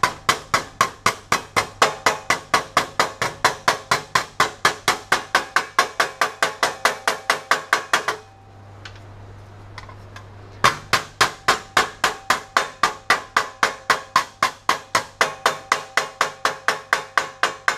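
Hammer tapping rapidly on a folded sheet-metal edge held against a pan brake, about four to five light blows a second with a short metallic ring, crushing a 5 mm fold down flat to form a safe edge. The tapping stops for about two and a half seconds a little past the middle, then picks up again at the same pace.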